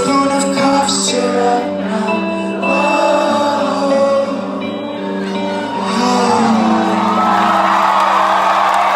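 Live rock band playing and singing the closing bars of a song in a large hall, with the crowd whooping and shouting over it, the crowd noise thickening in the last few seconds as the song ends.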